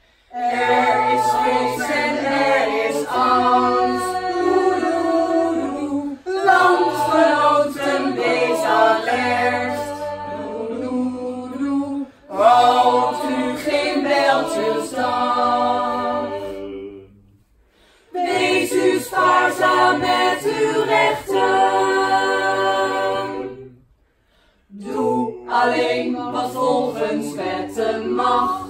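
A mixed choir of women and men singing together in phrases of about six seconds, with short breaks between them.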